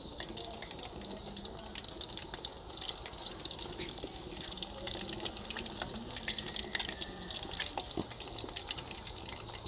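Fish pieces deep-frying in hot oil in an aluminium pot: a steady sizzle with frequent small pops and crackles.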